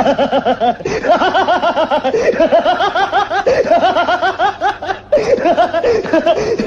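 A person laughing hard: a long run of quick, high-pitched 'ha-ha' pulses, broken by short pauses about a second in and again near the end.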